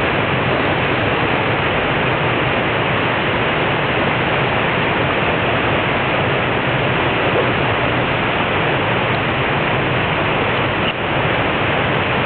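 River water pouring over a low concrete weir: a loud, steady rush of white water.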